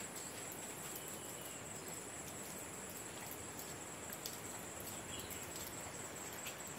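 Steady high-pitched insect chorus, crickets or similar insects buzzing without a break, over a faint even hiss.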